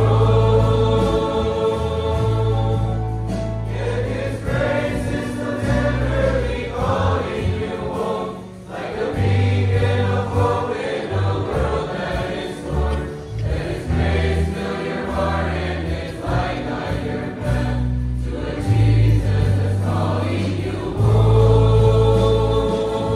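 Large mixed choir of young men and women singing a hymn together, accompanied by instruments with deep held bass notes.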